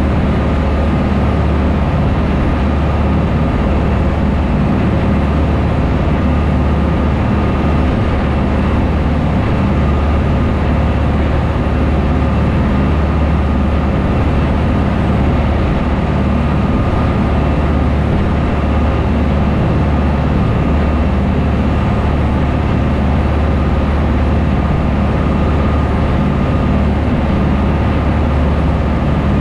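A small shuttle boat's engines running steadily under way, a loud low drone, with the rush of the churning wake behind the boat.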